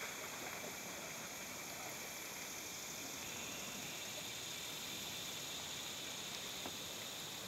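Steady river ambience: a soft rush of flowing water under a continuous high-pitched drone of summer insects, with a few faint clicks.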